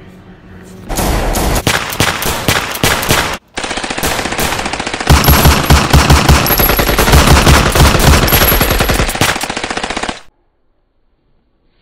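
Machine-gun fire sound effect: long bursts of rapid automatic fire that start about a second in and break off briefly near three and a half seconds. The fire then resumes heavier and cuts off suddenly about ten seconds in.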